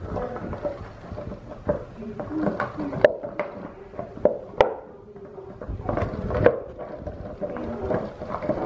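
A bulldog puppy pushing and chewing a plastic bottle on a tile floor: irregular sharp plastic crackles and clacks, with low grunts from the puppy underneath.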